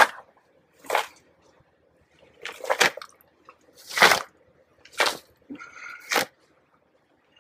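Hands sweeping and spreading crumbly matured compost in a worm farm bin: a series of short rustling scrapes, about one a second.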